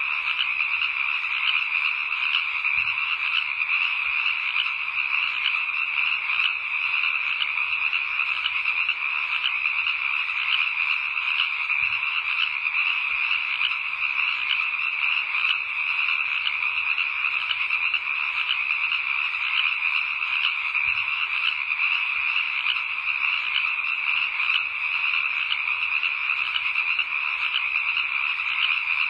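A dense, unbroken chorus of calling animals, the steady night ambience of many callers at once, with no change in level.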